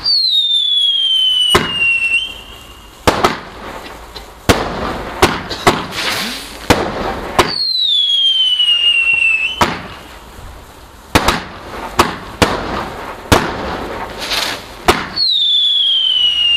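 Consumer fireworks going off: three shrill whistles, each falling in pitch over about two seconds, with a dozen or so sharp bangs and crackling hiss between them.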